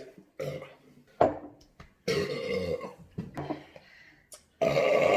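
A man burping several times after drinking beer: a couple of short burps, then a longer, drawn-out one about two seconds in, and another long one starting near the end.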